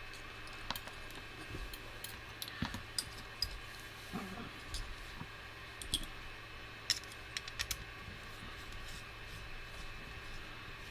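Scattered small clicks and taps of tools and small parts being handled as an FPV quadcopter is taken apart, over a steady low hum. The clicks come every half second or so and thin out after about eight seconds.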